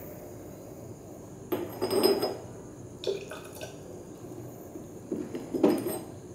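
Glass reagent bottle clinking and knocking as its cap and a plastic dropper are handled at its neck, in three short clusters of clinks.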